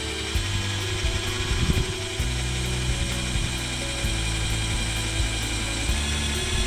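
Power drill whining steadily as it bores a 1/2-inch hole through the van's sheet-metal roof, its pitch shifting near the end, with background music underneath.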